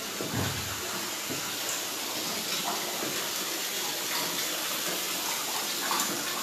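Water running steadily from a bathroom tap.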